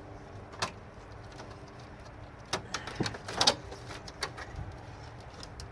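Scattered clicks and knocks of plastic and wire connectors being handled and unplugged inside an old CRT television, the loudest a bit over halfway through, over a faint steady low hum.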